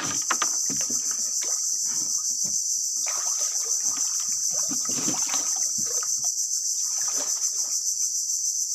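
A steady high-pitched insect chorus, with irregular small splashes and knocks of water and wood beneath it.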